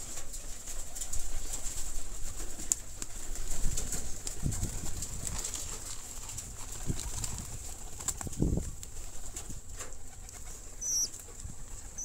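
Flock of domestic pigeons giving a few low coos, with wing flaps and scattered light clicks as the birds crowd in to peck at a handful of corn.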